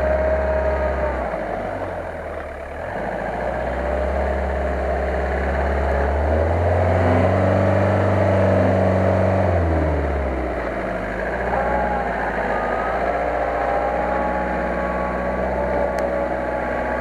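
Asia Rocsta 4x4's engine working through deep muddy water, revving up about six seconds in and easing off again around ten seconds, with water sloshing and splashing around the wheels.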